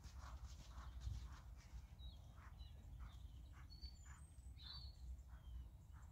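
Faint, even hoofbeats of a ridden horse trotting on the arena surface, about three a second. A few short bird chirps come in the middle.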